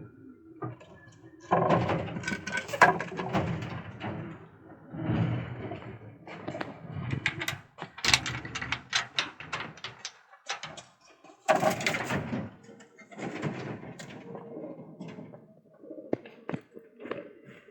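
Pigeons in a loft cooing, with several loud bursts of rustling and sharp clicks among them.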